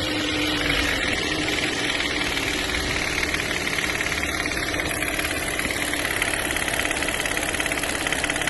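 Toyota Corolla 1.8 16-valve petrol engine dropping back from a rev to idle, with a fast, regular knocking running through it. The shop traced this noise to the two VVT phaser pulleys losing oil pressure and to worn connecting-rod small-end bushings with wrist-pin play.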